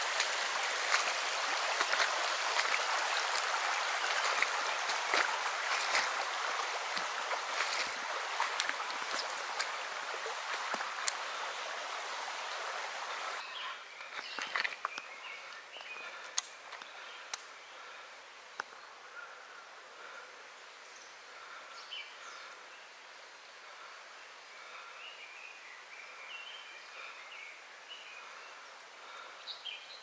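Shallow stream rippling steadily over a rocky riffle. About 13 seconds in, the water noise drops suddenly to a much quieter background, with a few short water splashes and, later, faint high calls.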